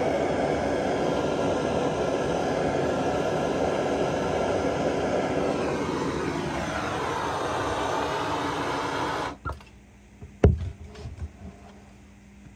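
Handheld gas torch flame hissing steadily while soldering copper refrigerant line joints with Stay-Brite silver solder. The hiss cuts off suddenly about nine seconds in, and a single sharp knock follows about a second later, with a few faint ticks after it.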